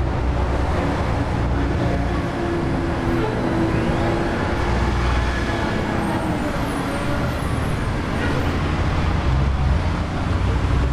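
Steady city street traffic: the engines and tyres of passing vehicles, with a low engine drone running underneath.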